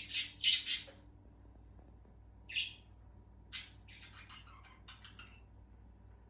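Birds chirping: a quick cluster of loud high chirps at the start, two single chirps, then a run of fainter rapid chirps.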